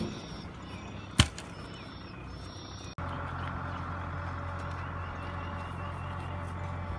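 A single sharp knock about a second in, then from about three seconds in a heavy diesel engine running at a steady, even speed.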